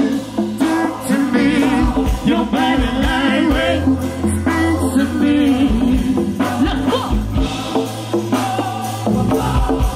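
Live band music with singing: a steady bass line under held sung notes with vibrato.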